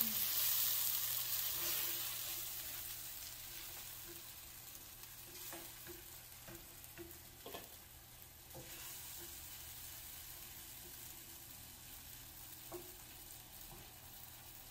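Curry sauce sizzling and simmering in a pan on a gas burner while a silicone spoon stirs it. The hiss is loudest at the start and dies down over the first few seconds, with a few soft knocks of the spoon against the pan later on.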